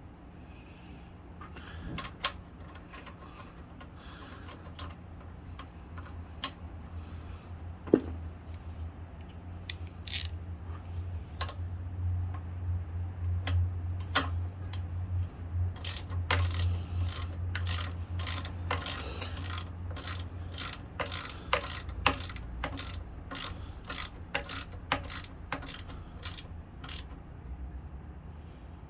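A 3/8-inch ratchet with an Allen socket clicking in quick runs of strokes as it tightens the pivot bolt of a motorcycle's forward foot control, with a few separate metallic knocks of the tool.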